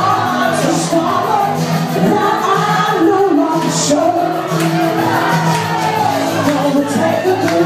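Loud pop music with a singing voice over a steady bass line, with cymbal splashes every couple of seconds.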